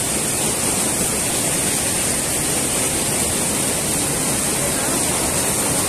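Waterfall and rocky mountain stream rushing over boulders: a steady, loud wash of water that does not change.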